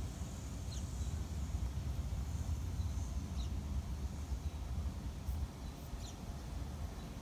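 Outdoor ambience: a steady low rumble, with three short, high, falling bird chirps a few seconds apart.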